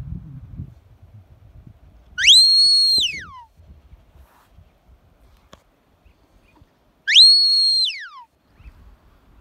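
Two long whistled commands to a working sheepdog, a few seconds apart. Each one sweeps up quickly, holds a high steady note, then slides down.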